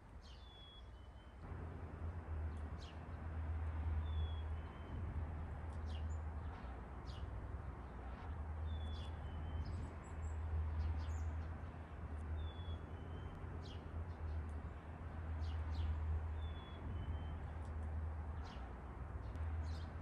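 Small birds chirping outdoors, one repeating a short falling call about every two seconds. Under them runs a steady, uneven low rumbling noise that comes in about a second and a half in.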